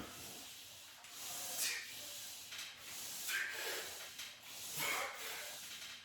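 A man breathing hard and rhythmically through the mouth, labored from the exertion of weight-lifting reps: three forceful, hissing breaths about a second and a half apart.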